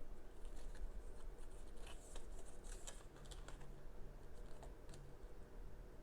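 Faint rustling and crinkling with a few light clicks: a sneaker box and its packaging being handled during an unboxing, most of it between about half a second and five seconds in.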